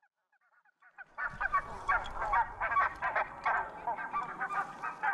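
Canada geese honking: many quick, overlapping honks, faint at first and loud from about a second in.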